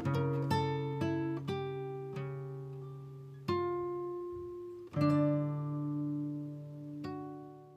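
Background music: an acoustic guitar plucking slow notes and chords, each one struck sharply and left to ring out and fade.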